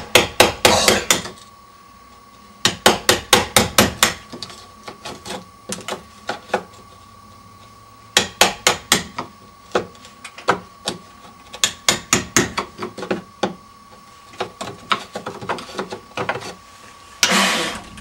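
Hammer rapidly tapping a steel wood chisel into the wooden door jamb, in several quick runs of about five sharp strikes a second with short pauses, chipping out the deadbolt strike opening so it lines up with the bolt. A brief scraping rush near the end.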